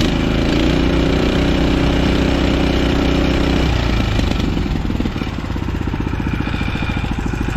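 Double (ride-on) concrete power trowel's small gasoline engine running, pull-started on the first pull. It runs faster for the first few seconds, then drops back to a steady, evenly pulsing idle about four seconds in.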